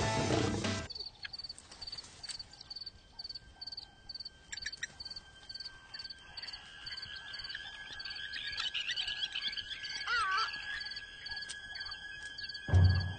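Natural outdoor ambience: an insect chirping about twice a second over a steady high drone, with birds calling off and on in the middle. Near the end comes one short, loud, deep sound.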